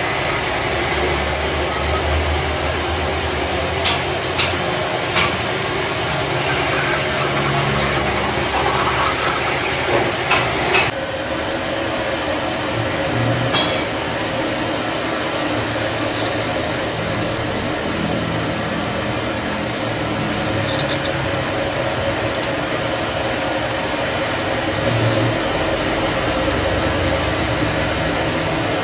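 Steady mechanical workshop noise with a few sharp metal clicks and knocks in the first half. After the sound shifts, about a third of the way in, a steady high-pitched whine comes and goes over it.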